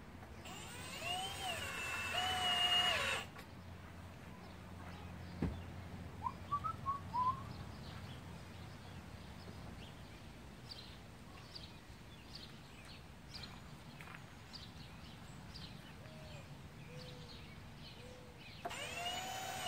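Cordless drill-driver whirring for about three seconds as it drives a screw into wood, then again briefly near the end. In between, birds chirp, with a louder cluster of short chirps about six seconds in and a single click just before it.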